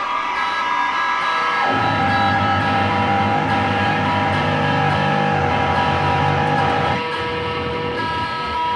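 Live noise music: dense layers of sustained, steady tones, with a low droning layer that comes in about two seconds in and cuts out suddenly around seven seconds.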